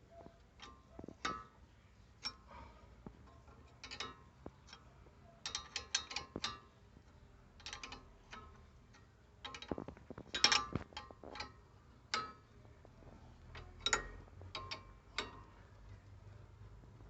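Ratchet wrench clicking in short quick runs, with scattered metallic clinks, as the brake caliper bolts are tightened.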